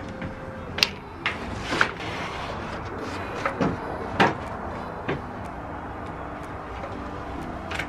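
A series of sharp knocks and clatters, about seven, irregularly spaced through the first five seconds, the loudest about four seconds in.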